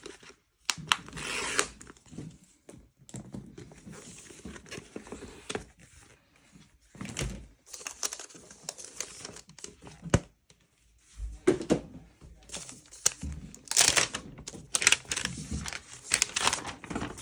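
Cardboard box and paper packaging of an iPad Magic Keyboard being opened by hand: paper tearing, crinkling and rustling in irregular spells, with a few light knocks as pieces are set down.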